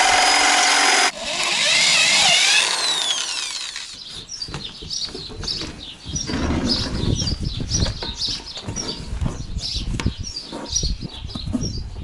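Cordless drill-driver running in two quick runs, driving a screw into a wooden plank, its pitch falling as it winds down about two and a half seconds in. Then light scraping, rubbing and knocking as rope is tied around the plank and the rubber inner tube.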